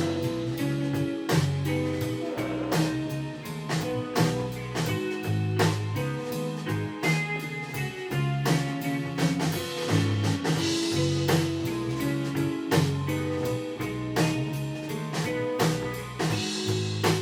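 Live rock band playing an instrumental passage: guitar over low bass notes and a drum kit keeping a steady beat, with no singing.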